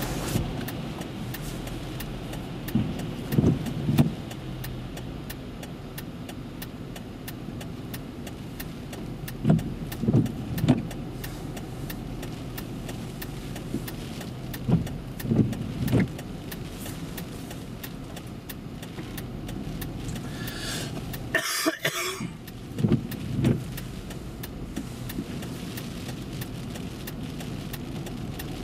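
Vehicles driving through floodwater on a highway: a steady hiss of tyres and spray. Pairs of dull low thumps come every several seconds and are the loudest sounds.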